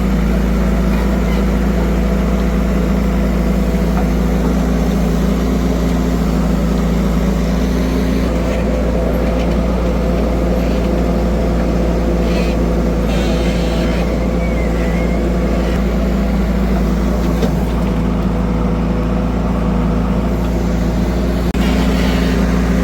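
Heavy vehicle engine running steadily at an even speed, with a few brief higher clattering noises over it.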